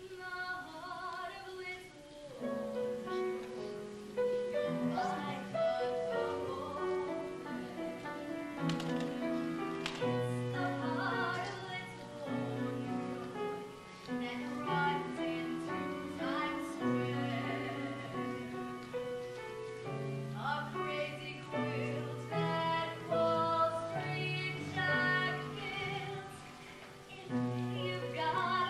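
Show choir singing with instrumental accompaniment and sustained bass notes underneath.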